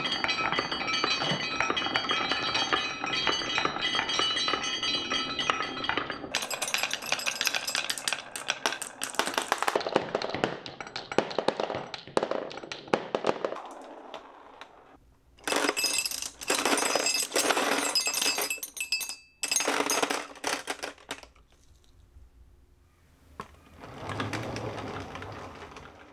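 Many marbles clattering and rolling down a wooden HABA marble run, with the metal bars of its metallophone slope ringing in runs of notes as the marbles pass over them. The clatter thins out into short bursts with quiet gaps toward the end.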